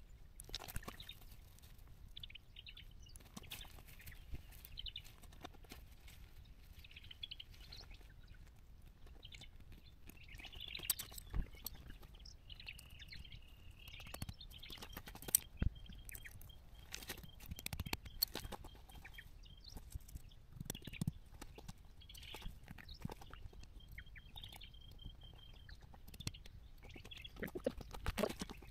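Faint rustles, clicks and knocks of a lightweight tent being pitched and handled on stony ground, with footsteps on gravel. A thin, high, steady trill comes in twice in the background, once for several seconds and again briefly near the end.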